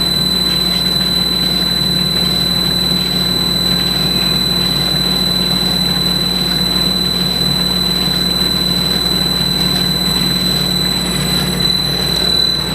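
Norton cylindrical grinder running under power, a steady machine hum with a thin, constant high whine over it.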